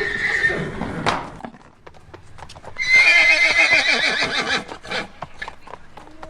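A horse whinnying twice: a short call at the start, then a longer, louder, quavering whinny about three seconds in. Scattered hoof clops in between.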